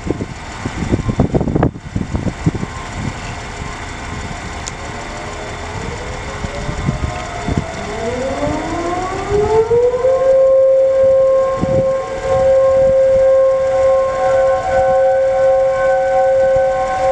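Several distant outdoor warning sirens winding up one after another, their pitches rising and then settling about ten seconds in into a steady, chord-like wail of a few tones. A low rumble sits under the first couple of seconds.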